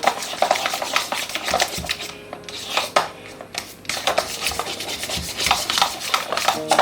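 Fork mashing ripe banana into a sticky mixture in a bowl, with irregular wet scraping and frequent clicks of the fork against the bowl.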